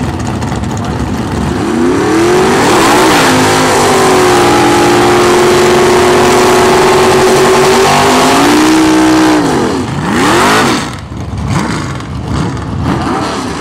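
Fox-body Mustang drag car doing a burnout: the engine climbs in revs and is held high while the rear tyres spin, then drops off about nine seconds in, followed by one more short rev before it settles lower.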